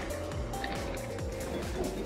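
Background music with held tones over a low steady rumble.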